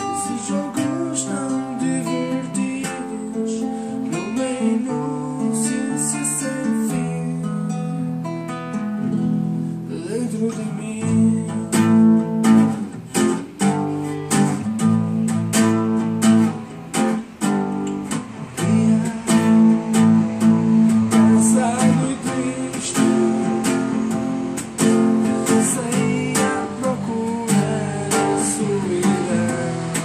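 Acoustic guitar strumming chords in a steady rhythm, the strokes growing louder and busier about eleven seconds in.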